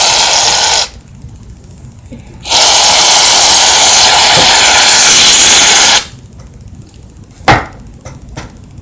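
Aerosol shaving cream can spraying in two long hissing bursts, the second lasting about three and a half seconds, as foam is dispensed onto slime. A single sharp knock follows near the end.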